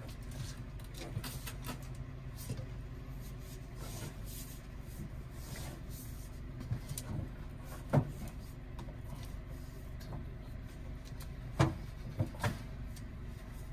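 Thick, heavy EV rapid-charger cable being handled and hung back on the charger, with a few sharp knocks and clunks, one partway through and three close together near the end, over a steady low machine hum.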